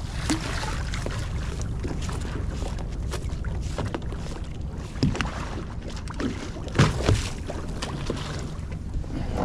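A lobster hoop net and its buoy line going over the side of a boat, with a few sharp knocks and splashes about halfway through. Under them is the steady low rumble of the boat and the water.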